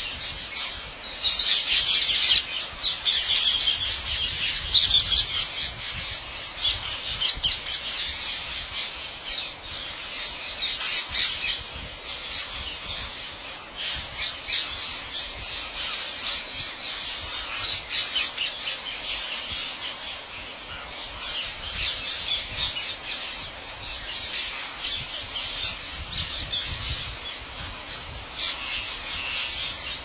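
A huge flock of rose-ringed parakeets screeching, hundreds of harsh calls overlapping into a constant din, loudest in the first few seconds.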